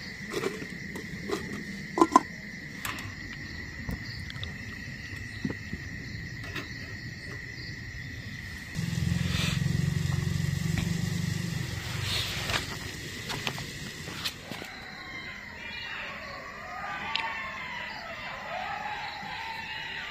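Clinks and clicks of metal utensils being handled over a steady high insect trill. About nine seconds in, a small gas stove burner gives a low steady rush for a few seconds. From about fifteen seconds on, several animals howl in overlapping, wavering calls.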